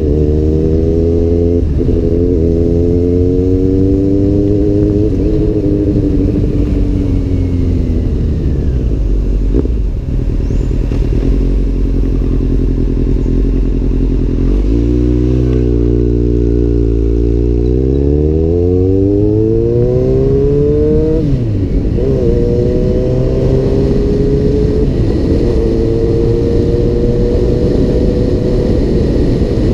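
Kawasaki Z800's inline-four engine through an Arrow aftermarket exhaust while riding: the engine note slowly falls away for the first several seconds, then about halfway through it climbs steeply under acceleration, drops suddenly at a gear change about two-thirds through, and climbs again.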